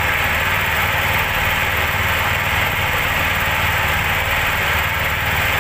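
The engine of a small wooden fishing boat running steadily, a continuous low drone under an even hiss.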